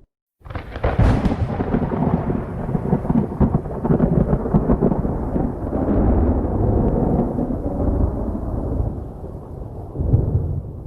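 Close lightning strike: a sudden sharp crack of thunder, then a long rolling rumble that swells again near the end.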